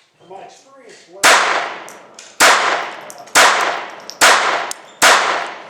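Bryco J-22 .22 LR pistol firing five shots about a second apart, each sharp report trailing off in an echo. The pistol feeds and fires all five without a stoppage.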